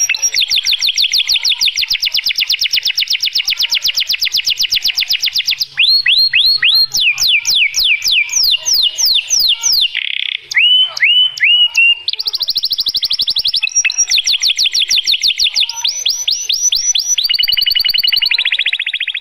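White male domestic canary singing a continuous, loud song. It opens with a long, fast trill of rapid repeated notes, then moves into phrases of slower falling notes, and switches back to fast trills twice more.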